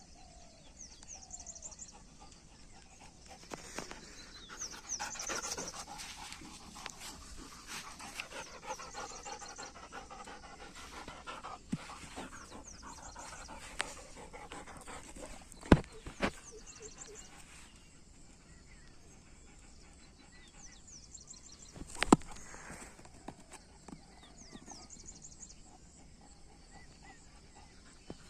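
A Doberman panting hard, with two sharp knocks about six seconds apart, the loudest sounds, in the middle of the stretch.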